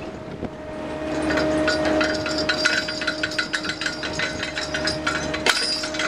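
Trawl chain groundgear and netting clattering as the trawl is hauled aboard over the stern, a fast run of metallic knocks that starts about a second in. Under it runs a steady hum of shipboard machinery.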